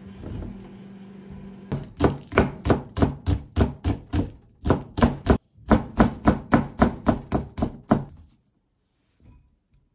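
Chef's knife slicing a green onion into thin rounds on a wooden cutting board: a steady run of crisp knocks, about three or four a second. They start about two seconds in, pause briefly twice, and stop shortly before the end.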